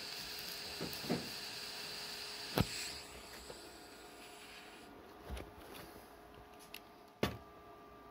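TIG welding arc on a steel coil spring, a steady hiss that stops about three seconds in, with a sharp knock just before it ends. After that come a few separate sharp knocks, the loudest near the end, as the welded spring is handled.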